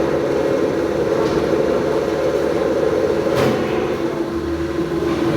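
Milling machine running at a steady speed with a constant hum, and one short sharp tick about three and a half seconds in.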